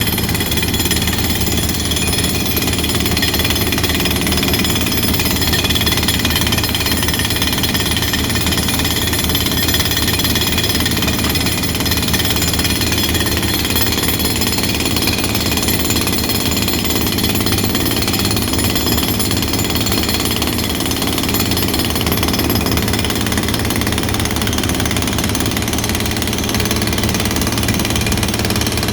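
Excavator-mounted hydraulic breaker (hydraulic jackhammer) hammering continuously, a fast, even stream of strokes without a pause.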